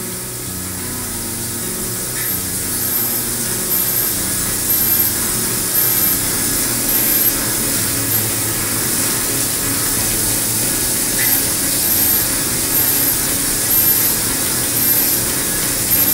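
Haas VM-3 CNC mill drilling holes in a billet aluminum motorcycle wheel under flood coolant: a steady spray hiss with the spindle running, and a regular pulse about once a second.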